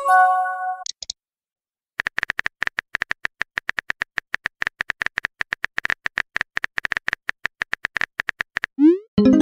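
Chat-app sound effects: a short pitched chime as a message arrives, then rapid phone-keyboard tap clicks, several a second, for about seven seconds. Near the end comes a quick rising swoop and another chime as the next message is sent.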